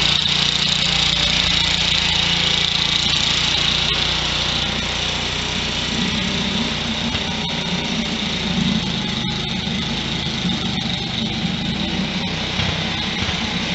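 A small garden tractor's engine running steadily. About six seconds in, its low note turns rougher and less even.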